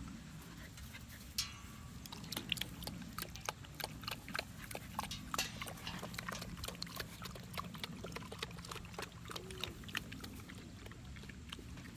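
American Bully puppies playing and wrestling in grass: low grunting and growling with many small scuffling clicks.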